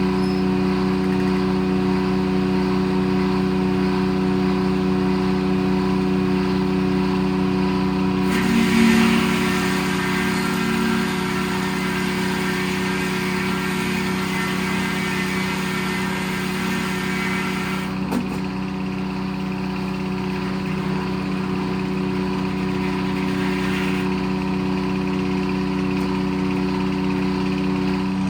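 Detroit Diesel engine powering a circle sawmill, running steadily. About eight seconds in, a harsh hiss joins it, which fits the blade cutting through a log. It stops abruptly after about ten seconds, and the engine runs on alone.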